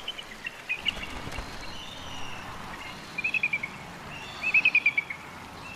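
Bald eagle calling: rapid runs of thin, high chittering notes, one about three seconds in and a louder one about four and a half seconds in, each falling slightly in pitch, with a few single chirps before them.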